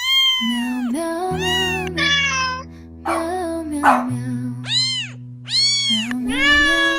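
A cat meowing about six times, each meow rising and then falling in pitch, over soft background music.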